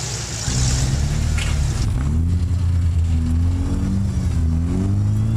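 Rock-crawler engine working at low revs, its pitch rising and falling several times as the throttle is worked, starting about half a second in after a short hiss.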